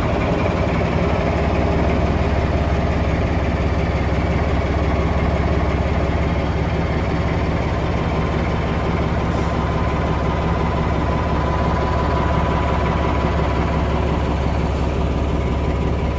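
BR Class 14 diesel-hydraulic locomotive D9529's Paxman diesel engine idling, a steady low hum that stays even throughout.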